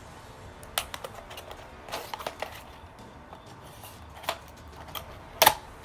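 Cardboard accessory box being slit open with a knife and pulled apart: scattered light clicks, scrapes and scratches, the sharpest click a little before the end.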